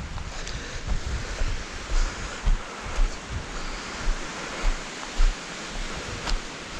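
Surf washing on a mixed shingle-and-sand beach, a steady hiss, with gusts of wind buffeting the microphone in irregular low thumps.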